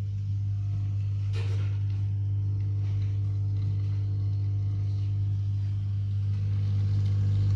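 Bean-to-cup coffee vending machine running while it brews an espresso: a steady low hum, with a short click about a second and a half in, and the hum getting a little louder near the end.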